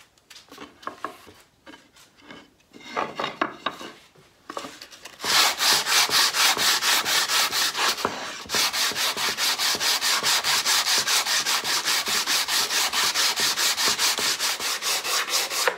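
80-grit sandpaper on a hand block rubbing along the edge of an elm rail, breaking the sharp edge left by the saw. Light, scattered strokes at first, then from about five seconds in fast, even back-and-forth strokes, about four or five a second, with a short break about eight seconds in.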